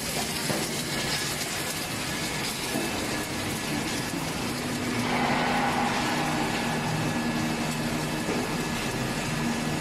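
Steady mechanical noise and hiss of a welding H-beam fabrication machine running. A low steady hum comes in and the noise grows slightly louder about five seconds in.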